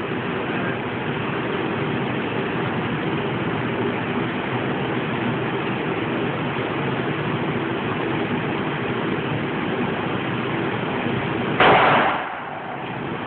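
A single pistol shot near the end, over a steady background rumble. The background drops away for a moment just after the shot.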